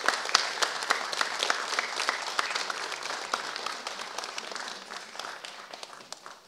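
An audience and a children's choir applauding, many hands clapping at once, dying away near the end.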